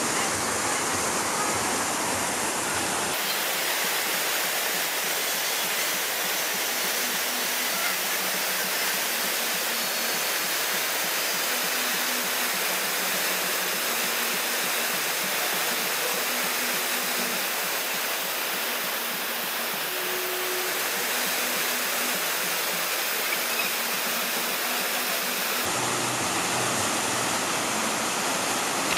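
Steady rush of water from a wide curtain waterfall pouring over a long wall and splashing into a shallow pool.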